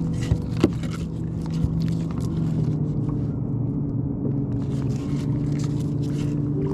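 An engine running steadily with a constant low drone, with a few sharp clicks in the first couple of seconds.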